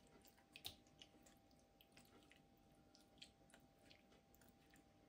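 Faint, scattered soft clicks and squishes of a small metal ladle scooping ground-beef filling in a frying pan and pressing it into a dry cannelloni tube.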